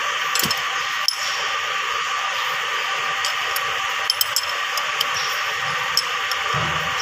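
Light metallic clicks and clinks, scattered and irregular, as small bolts are handled by hand against a torque converter's metal housing, over a steady background hiss.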